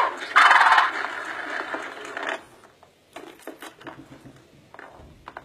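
'Mother Nature Says' See 'n Say talking toy: a loud sound plays from its built-in speaker for about two seconds after the lever pull, then scattered light plastic clicks as the dial and pointer are turned by hand.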